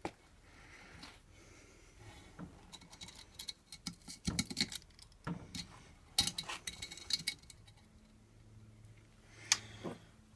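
Irregular clicks, taps and light metallic clatter of a scooter's Apex brake and its small hardware being handled while it is fitted to the deck. A faint low steady hum comes in near the end.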